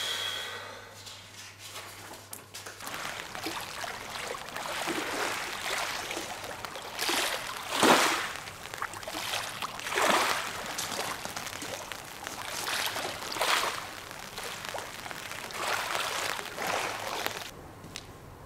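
Small lake waves washing and breaking on a pebble shore, surging every few seconds and loudest about eight seconds in, dying away near the end.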